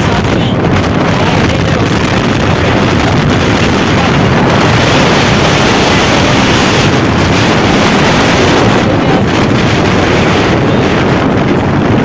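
Loud, steady wind rushing over the microphone of a phone mounted on a moving motorcycle, mixed with the bike's road and engine noise.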